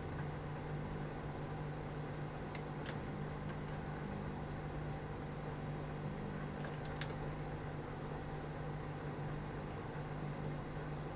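Microwave oven running as it heats, a steady low hum with the fan's whir, broken by faint light clicks twice, about two and a half and seven seconds in.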